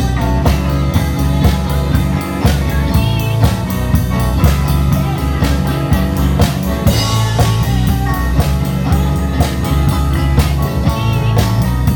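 A live rock band playing, the drum kit keeping a steady beat with regular strikes under held, sustained chords from other instruments.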